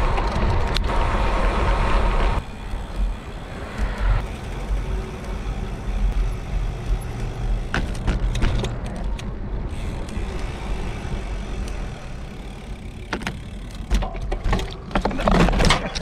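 Wind buffeting the microphone of a handlebar-mounted GoPro on a moving bicycle: a continuous rumbling rush, loudest in the first couple of seconds. Near the end come a few sharp knocks and clatter as the bike goes down in a small fall.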